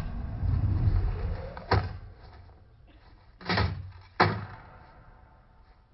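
Heavy thuds and crashes from a film's fight sound track: a hit right at the start with a rumbling clatter after it, another about a second and a half later, then two more close together about three and a half and four seconds in, the last the loudest, each ringing out briefly.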